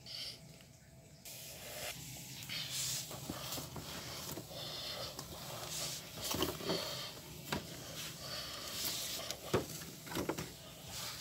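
A cardboard toy-blaster box being handled and laid down: cardboard rustling and scraping, with several short light knocks in the second half.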